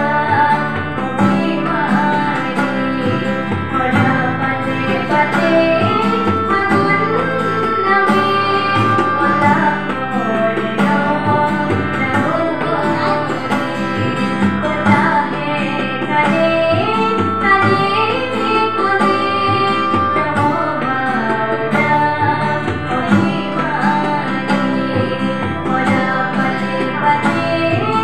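A female singer with tabla and harmonium accompaniment, performing an Assamese song.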